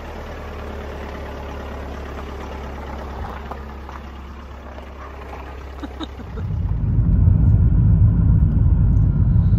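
Car engine idling with a steady low hum. About six seconds in it gives way to a much louder low rumble of the car driving on the road, heard from inside the cabin.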